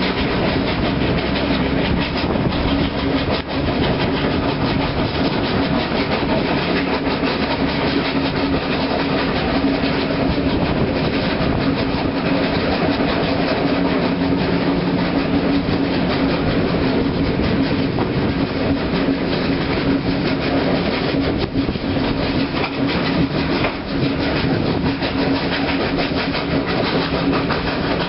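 Three NSW steam locomotives, 4-6-0s 3265, 3526 and 3642, hauling the train, heard from a carriage close behind: a dense, rapid run of exhaust beats over the running noise of the carriages on the rails, with a steady hum underneath.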